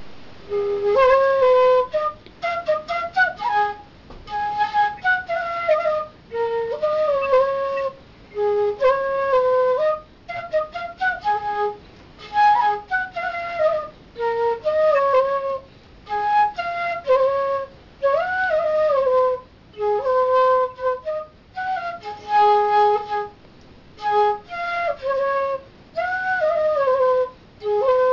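Unaccompanied bansuri (Indian bamboo side-blown flute) playing a melody in short phrases with brief pauses between them, sliding between notes.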